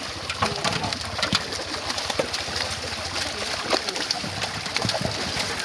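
Birds calling, with many small splashes and clicks.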